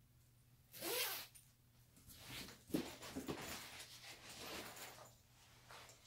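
A hoodie's zipper pulled up to the collar in one quick sweep about a second in, followed by fabric rustling with a few soft knocks as the clothing is adjusted.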